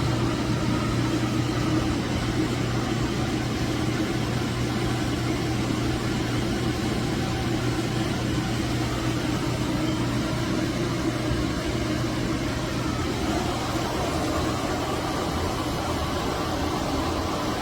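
VIVOSUN AeroWave E6 clip fan with its 12 W EC motor running steadily: an even rush of air over a constant low hum.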